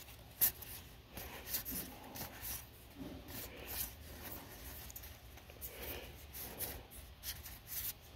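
Magic: The Gathering cards being passed from hand to hand, sliding and flicking against each other: soft, scattered rustles and light clicks, with one sharper click about half a second in.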